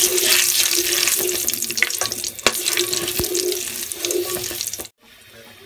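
Whole spices (bay leaves, cinnamon and cardamom) sizzling in hot oil in a frying pan while a wooden spatula stirs them, knocking against the pan a few times; the sizzle fades gradually and cuts off suddenly about five seconds in. A faint steady hum runs underneath.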